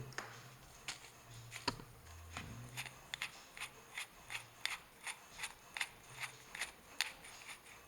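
A regular run of light mechanical clicks, about two to three a second, from handling the impact drill before it is switched on.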